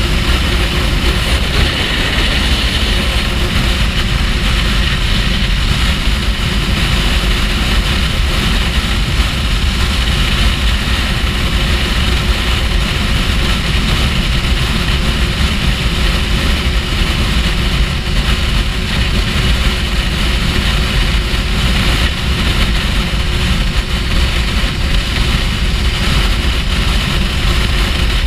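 Steady wind rush on the microphone and road noise from a Kawasaki Ninja H2 cruising at motorway speed, its engine running at a constant pace underneath with no revving.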